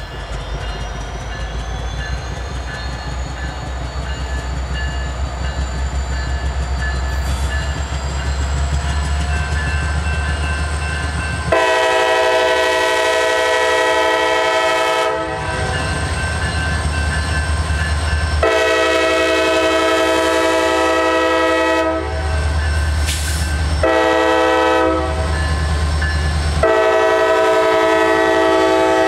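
Diesel freight locomotives pass close by, their engines running and growing louder. The lead locomotive's multi-chime air horn then sounds the grade-crossing signal: two long blasts, a short one, and a final long blast.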